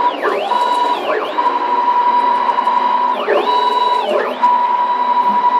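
Stepper motors of a homemade CNC wood router driving the axes on rapid moves at around 6000 mm/min. They whine, rising in pitch as an axis speeds up, holding a steady tone, then falling as it slows and reverses, three or four times over.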